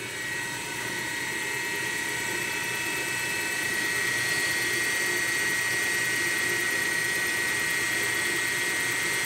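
Belt-driven spindle of a CNC-converted Grizzly G0704 benchtop mill running steadily at speed, a continuous high-pitched whine with fast light ticking from a high spot on the drive belt.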